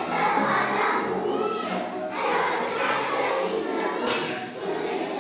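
A class of young children singing together, in phrases with short breaks between them.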